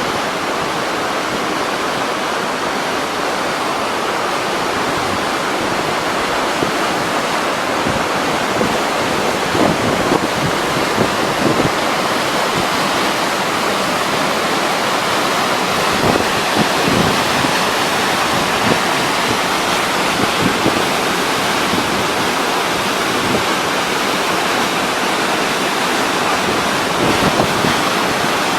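Waterfall rushing with a steady, loud roar of falling water, with occasional gusts of wind buffeting the microphone.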